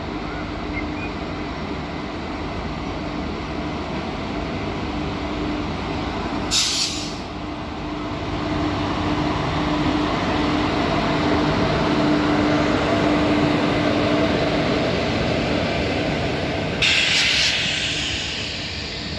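Electric locomotive-hauled passenger train passing close by: a steady hum under the running noise of the locomotive and the clatter of coaches rolling past, growing louder as the train draws level. Two brief loud hisses, about ten seconds apart, cut through the rumble.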